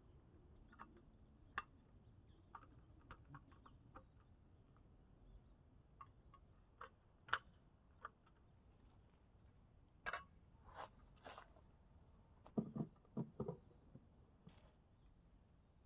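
Near-silent outdoor ambience with faint scattered ticks and clicks, and a short run of soft knocks about twelve to thirteen seconds in.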